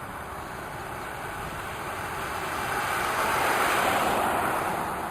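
Rushing road noise that swells to a peak about three and a half seconds in, then eases off.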